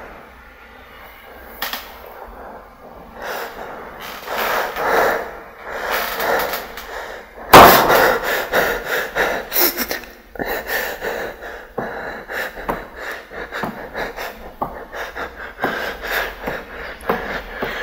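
A person breathing hard, with one sudden loud bang about seven and a half seconds in, then quick, short breaths repeating rapidly.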